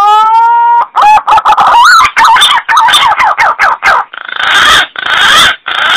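Green pigeon (punai) calling: a rising whistled note, then a quick run of wavering, warbling notes, ending with three harsh, raspy notes.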